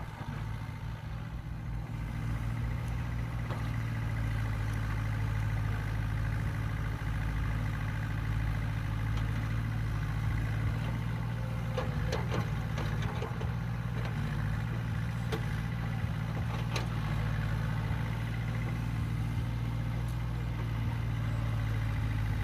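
Sumitomo S160 hydraulic excavator's diesel engine running steadily as the machine digs a ditch, with a few short knocks a little past the middle.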